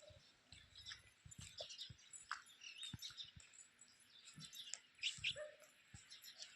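Faint, scattered bird chirps over near-silent outdoor quiet, with a few soft low knocks.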